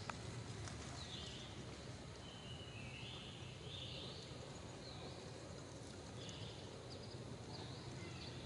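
Quiet outdoor ambience: a steady low hum under short, high chirping calls that repeat about once a second.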